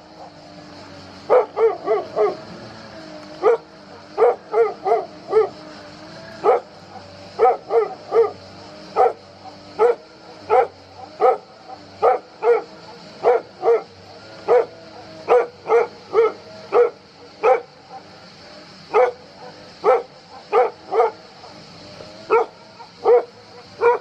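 A dog barking over and over in short, sharp barks, often in quick runs of two to four. A steady high hiss runs behind the barks.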